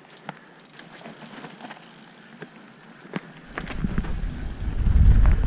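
Mountain bike rolling down a trail, with scattered clicks and rattles from the bike. About three and a half seconds in, a loud low rumble of wind and trail noise on the microphone sets in and grows as the bike picks up speed.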